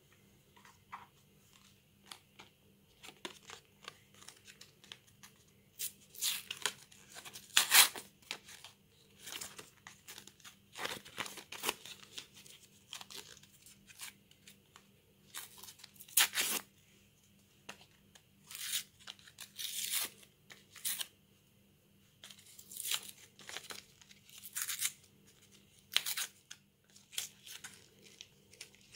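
Energizer AAA battery blister pack being torn open by hand: cardboard backing ripping and plastic crinkling in irregular bursts, loudest about eight seconds in and again halfway through.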